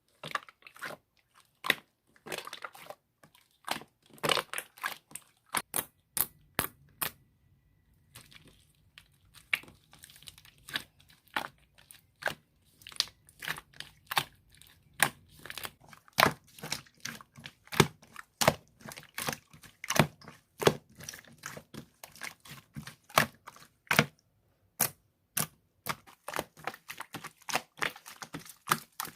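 Large batch of slime being squeezed and pressed by hand, giving a long run of sharp clicks and pops. The clicks are sparse at first and come thicker and faster through the second half.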